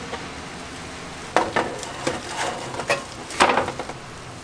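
Foil-lined metal baking pan being slid off an oven rack and set down on a gas stovetop grate: several clanks and scrapes, the loudest about three and a half seconds in, over a light sizzle from the hot fish.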